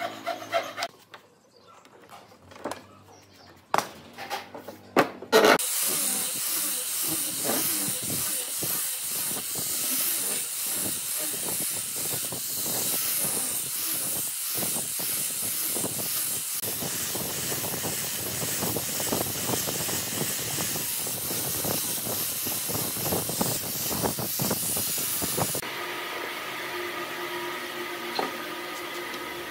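Handheld grinder with a sanding disc sanding the edge of a round wooden stool top, a loud, steady hiss of abrasive on wood lasting about twenty seconds. It is preceded by a few sharp clicks and knocks, and it stops abruptly about four seconds before the end.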